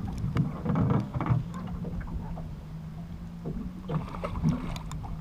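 A boat's motor hums steadily, with scattered clicks and knocks from tackle and the hull, while an angler fights a hooked fish.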